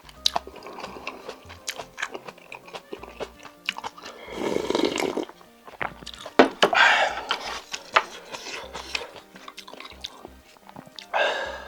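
Close-miked eating of spicy octopus with rice: wet chewing with many small mouth clicks and smacks, and three louder noisy bursts of eating noise, about four seconds in, near the middle and near the end.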